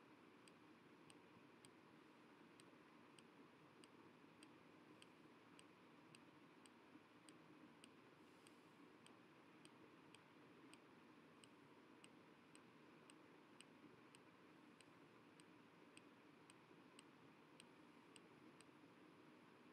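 Near silence: faint room hiss with a faint, regular ticking about twice a second.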